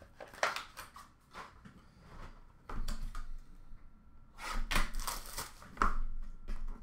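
Handling noise of trading cards and a small cardboard card box: scattered clicks, rustles and light knocks, busiest from about three seconds in and again in the second half.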